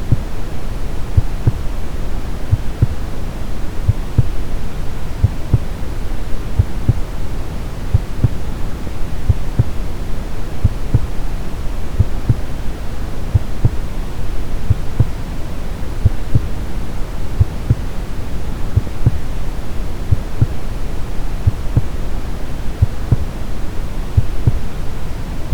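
Steady brown noise, a deep rumbling hiss, with a slow heartbeat thumping regularly underneath.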